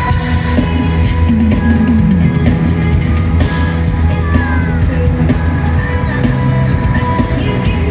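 Live pop music played loud through a concert sound system: a heavy bass beat under a sung vocal line.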